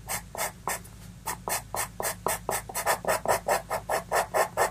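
Faber-Castell pastel pencil scratching across pastel paper in short, quick strokes, about four a second, growing louder in the second half.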